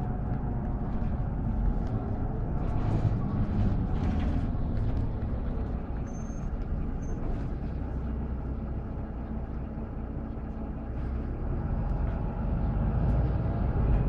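Inside a Mercedes-Benz Conecto LF city bus, its OM926LA six-cylinder diesel engine running under a low, steady rumble as the bus moves slowly; the engine eases off around the middle and picks up again near the end.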